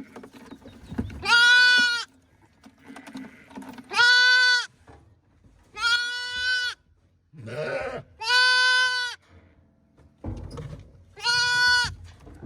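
Sheep bleating: five long calls, about one every two to three seconds, each held on the same steady pitch.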